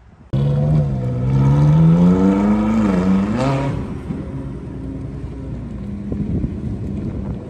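A car engine accelerating hard, its pitch rising steadily, then dipping and rising briefly about three seconds in before it drops away to a lower rumble as the car drives off.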